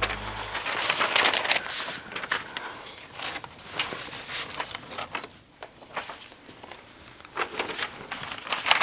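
Irregular rustling, clicks and knocks of objects being handled and rummaged through during a search, as piano music fades out at the start.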